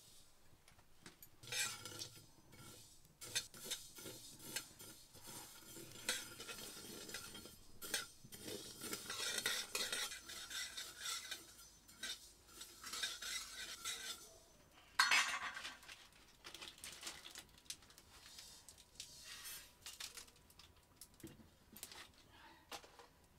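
Metal spoon scraping and clinking against an aluminium kadai while stirring spices roasting in the dry pan, with irregular scrapes and taps and one louder clatter about fifteen seconds in.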